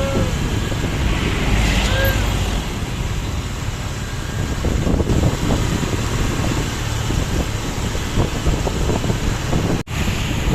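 Loud roadside traffic noise with wind buffeting the microphone, and two brief rising-and-falling tones in the first couple of seconds. The sound drops out for an instant near the end.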